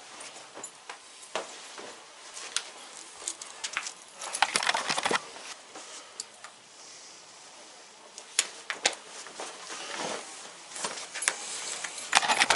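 Cloth rustling with scattered small clicks and clinks as a belt and suspenders are fitted to a pair of trousers. The rustling comes in louder bursts about four seconds in, around ten seconds, and just before the end.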